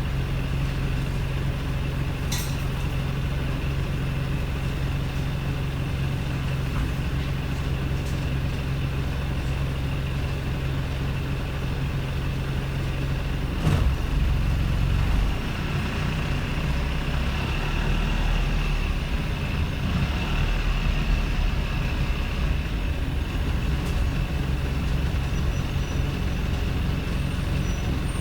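Wrightbus StreetLite's Daimler OM934 four-cylinder diesel idling roughly with a steady low note. About halfway a sharp clunk comes with a louder burst lasting over a second, after which the engine note is less even.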